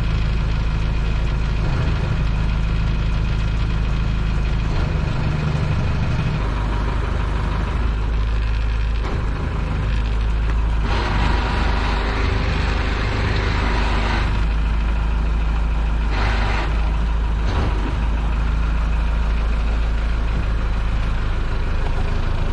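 Boat engine idling with a steady low rumble. A hiss rises over it for a few seconds around the middle.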